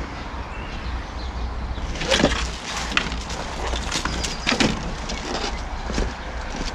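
A handful of sharp knocks and clatters, the loudest about two seconds in, from wire mesh and wooden battens being handled against a wooden shed wall, over a steady low rumble.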